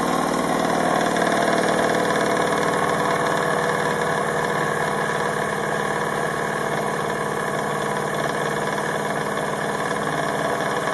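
Wilesco D16 model steam engine running fast and steady on a turned-up gas burner, with a rapid, even mechanical beat.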